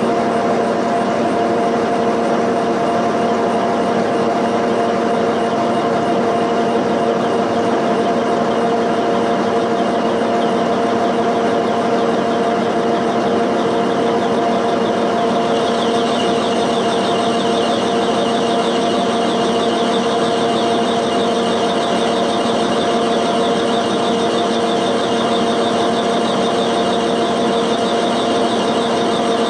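Milling machine running a cutter that machines down a cast iron valve guide on a cylinder head: a steady motor hum under the continuous rasp of cutting. About halfway through, a higher, fast-rippling buzz of cutter chatter joins in.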